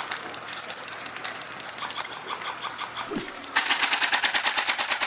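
Airsoft rifles firing on full auto: rapid, evenly spaced shots, fainter at first. About three and a half seconds in, a much closer gun opens up with a long, steady burst.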